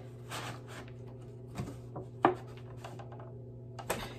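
Thin plastic 1020 seed tray and a plastic gallon jug of water being handled: rubbing and crinkling of flimsy plastic as the cheap tray flexes under the weight, with one sharp knock about two seconds in and a couple of clicks near the end, over a low steady hum.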